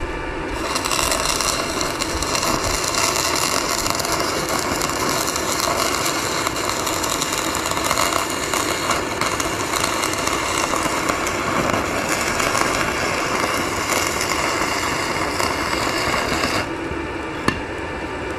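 Electric arc welding, a steady crackle and sizzle for about sixteen seconds that then cuts off, followed by a single click. A bead is being run around the inside of an outer bearing race in the axle housing, so that the race shrinks and drops out.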